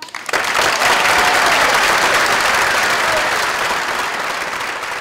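Theatre audience applauding as the dance music cuts out: the clapping breaks out at once, builds within the first second, then holds and slowly dies down toward the end.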